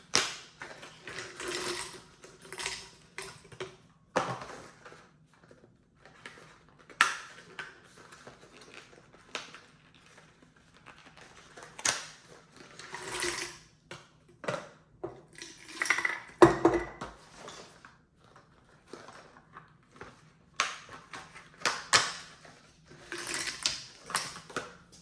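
Irregular clicks, knocks and short rustles of objects being handled: items and packaging picked up, moved and set down.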